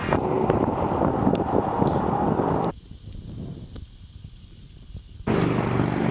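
Wind rushing over the microphone, with road noise from a group bicycle ride, in spliced clips. It is loud for the first two and a half seconds, drops abruptly to much quieter for the next two and a half, then cuts back to loud near the end.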